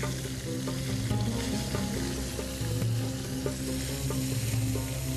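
Chicken pieces frying in hot oil in a pan, sizzling with frequent small pops as the oil spatters, while a metal ladle scrapes and turns them to brown. A low steady hum runs underneath.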